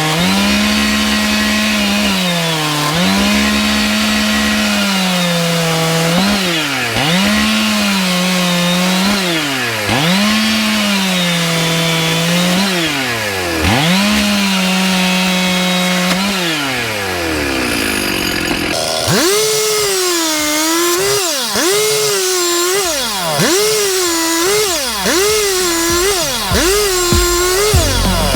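Old Stihl 090 two-stroke chainsaw running at high revs and cutting logs. The engine note sags each time the chain bites into the wood, then rises again as each cut finishes, over and over. About two-thirds of the way through, the note jumps to a much higher pitch and the cuts come faster.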